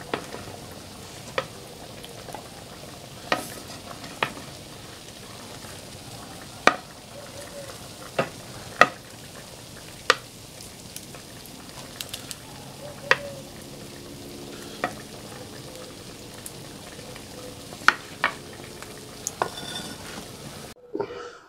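Wooden ladle serving stewed beans from an earthenware pot into a clay bowl: sharp knocks and scrapes of the ladle against the clay rims, about a dozen in all, over a steady low hiss.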